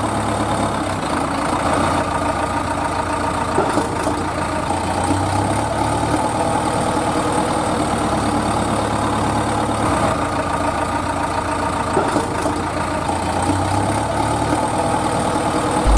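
A truck engine idling steadily, one unbroken drone with a low hum that shifts slightly every few seconds.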